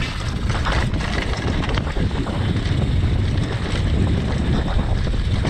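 Downhill mountain bike descending a dirt trail at speed: wind buffeting the microphone over the rolling noise of knobby tyres on dirt, with a constant patter of small knocks and rattles from the bike over rough ground.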